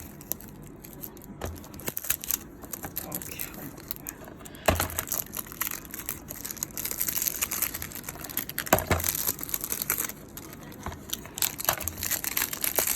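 Plastic packaging crinkling and tearing as it is handled, with scattered clicks and a couple of sharper knocks about five and nine seconds in.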